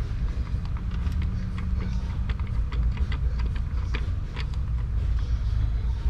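A steady low rumble, with scattered small clicks and knocks from hands working the rubber air intake duct back onto the throttle body. A faint steady hum sits in the rumble through the first half.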